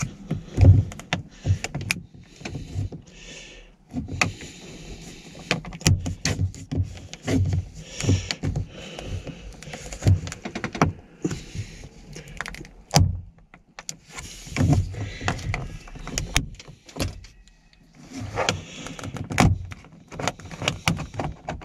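Plastic door trim and mirror-switch panel of a VW T4 van being pried and handled while a mirror's plug connectors are worked loose: irregular clicks, knocks and rustling.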